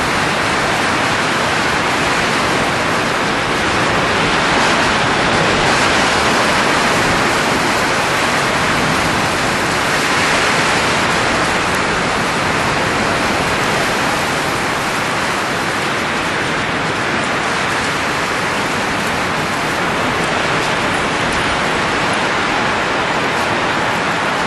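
Steady rushing noise of blowing air, swelling gently a few seconds in and again near the middle.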